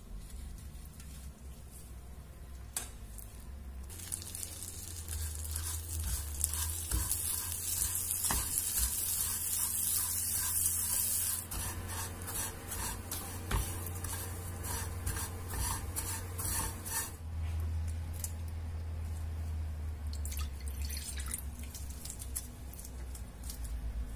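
Butter sizzling in a non-stick frying pan of dry vermicelli, the hiss strongest in the first half, followed by a silicone spatula turning and scraping the toasting strands in quick repeated strokes. A steady low hum runs underneath.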